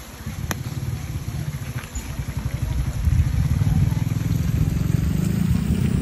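A low, fast-pulsing engine drone, like a small motor or motorcycle running nearby, getting louder about halfway through.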